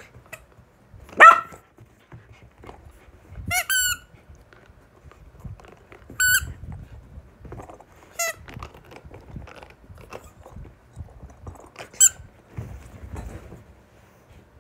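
A rubber squeaky toy ball squeaking in about six short, high squeaks spaced a few seconds apart. The first, about a second in, is the loudest.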